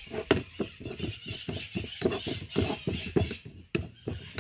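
Eggs being stirred in a frying pan with a utensil: quick scraping taps against the pan, about four a second, over the sizzle of frying oil.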